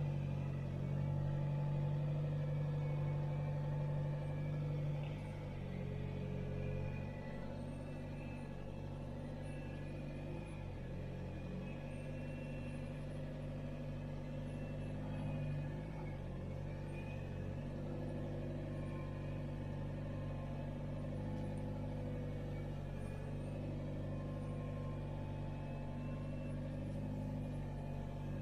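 Camper van's engine running steadily at low revs, heard from inside the cab, while the van creeps slowly under careful clutch control; the hum is a little louder for the first few seconds.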